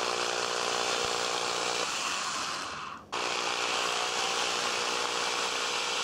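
Power drill with a very small bit running steadily as it bores short holes into the wood of an Ibanez Xiphos guitar body along a crack in the neck pocket, to take injected glue. It runs in two spells, stopping briefly about three seconds in and then starting again.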